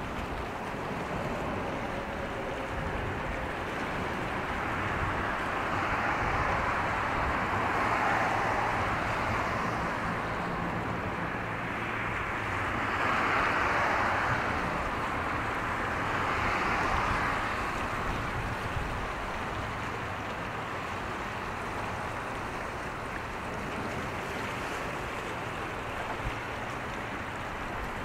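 Steady wash of wind and water noise that swells three times, over a faint low steady drone.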